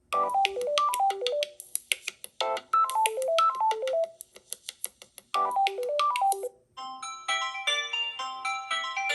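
Samsung Galaxy A04s stock ringtones playing. One tune of quick falling notes over a high ticking pattern plays its phrase three times, then a different, brighter chiming ringtone starts about seven seconds in.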